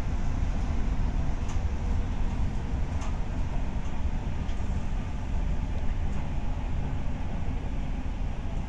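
Renfe series 470 electric multiple unit running along the line, heard from on board: a steady low rumble of wheels on rails with faint clicks about every second and a half.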